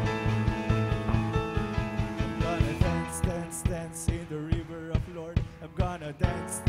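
Live worship band playing an upbeat song: a drum kit keeps a steady beat under electric guitar and keyboard, with cymbal crashes in the second half.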